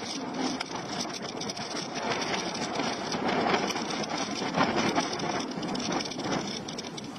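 Street noise picked up by a camera moving along a city street: a steady rushing noise dense with rattling and crackling clicks.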